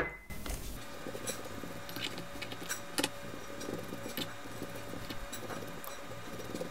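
Wooden spatula brushing melted butter onto slices of bread, soft scratchy strokes with a few light clicks, over a faint steady hum.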